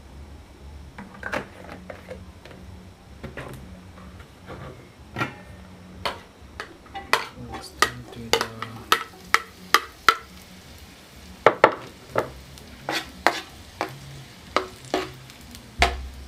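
Metal spoon clinking and scraping against a plate and a frying pan as sliced onions are pushed into hot oil and stirred, with some sizzling. The clinks come irregularly, thickest in the middle.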